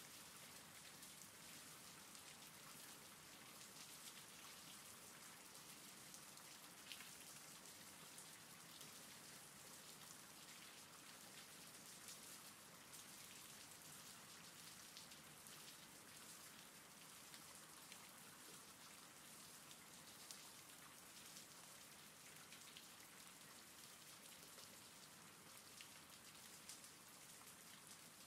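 Faint, steady rain, with the light patter of individual drops.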